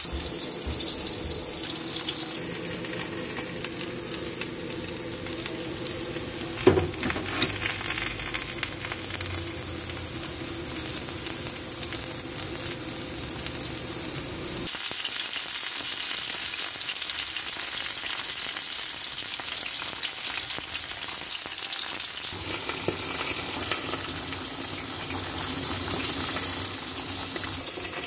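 Food sizzling as it fries in hot oil in a frying pan, with a single knock about seven seconds in.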